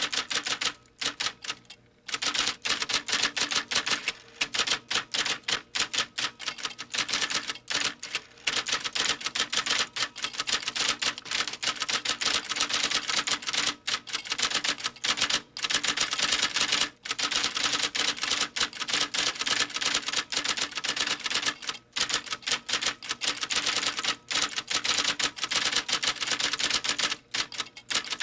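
Typewriter being typed on: a fast, dense run of key strikes with a few brief pauses.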